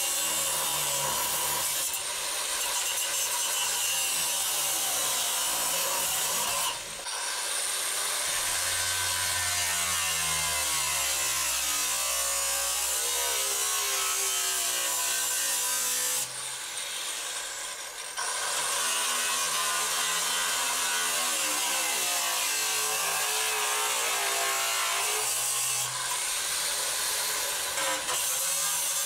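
Angle grinder cutting a hole through steel, its motor pitch wavering as it bogs under load and recovers. It stops briefly a few times, for about two seconds around the middle.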